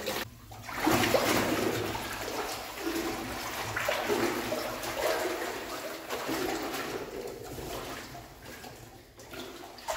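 Water sloshing and splashing as rubber boots wade through deep water in an echoing concrete tank, with a surge at each step about every second, fading near the end.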